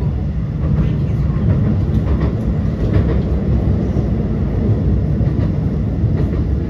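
Tram running along the line, heard from inside the car: a steady low rumble of wheels on the rails and the running gear.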